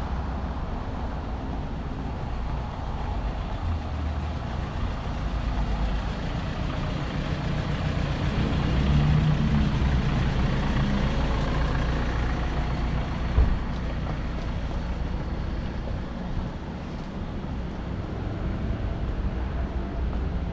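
Road traffic in a city street: a steady rumble, with a heavy vehicle's engine swelling up and passing about halfway through. A single sharp knock follows a few seconds later.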